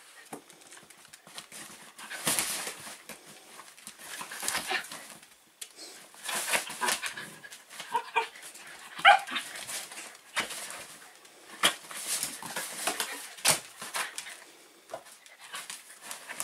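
Shetland sheepdogs, two adults and a puppy, playing: scuffling and knocking of paws and bodies on the floor and dog beds, with a few short high yips about halfway through.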